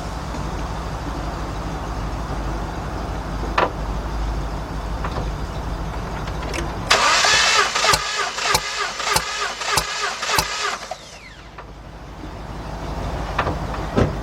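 2003 Jeep Liberty's 3.7 V6 cranked on the starter for about four seconds during a compression test, with a whir and a regular pulse about every half second as the tested cylinder builds compression. The back third cylinder sounds completely different when building compression, which the mechanic takes as a sign of a problem in that cylinder. A steady low rumble comes before the cranking.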